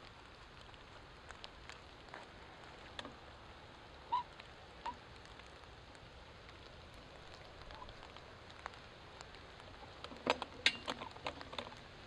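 Low outdoor ambience picked up on DIY binaural earbud microphones: a steady faint hiss with scattered light ticks, two short chirps about four and five seconds in, and a quick cluster of louder clicks and crackles near the end.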